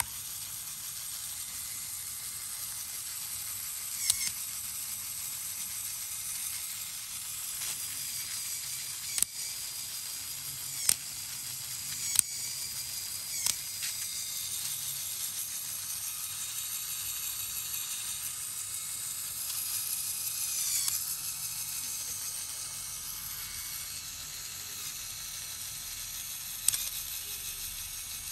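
LEGO electric motor running a Technic forward/reverse gearbox: a steady whirr of plastic gears meshing, with a few sharp plastic clicks along the way.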